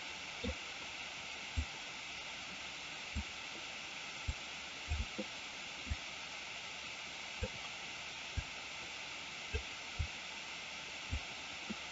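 Steady microphone hiss with soft, low clicks at irregular intervals, about one a second, from a computer mouse being clicked and moved on the desk.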